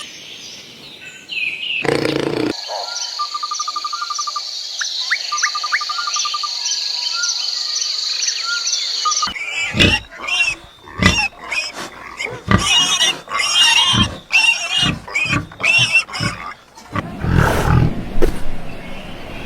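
Animal calls: a steady high-pitched hum with short trills, then from about nine seconds in a run of loud, irregular calls from an animal.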